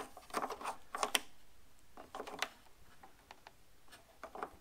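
Plastic clicks and scrapes of a bulb socket being twisted into a tail light housing, a tight fit. A few short, sharp clicks come at irregular moments, with brief handling rustles between them.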